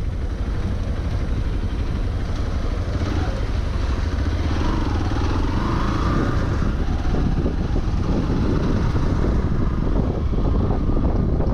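Hero Xpulse 200 single-cylinder motorcycle engine running while the bike is ridden, with wind rumble on the rider's microphone.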